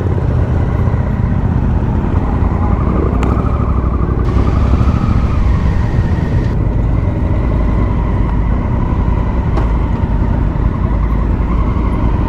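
Motorcycle engines running at low speed, a steady low rumble from the bike carrying the camera and the bikes around it.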